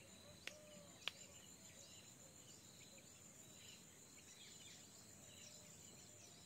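Near silence: faint, steady high-pitched insect buzzing with scattered soft bird chirps, and two small clicks about half a second and a second in.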